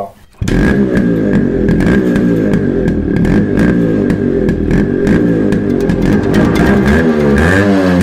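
Loud intro music led by heavy, distorted electric guitar with a steady beat.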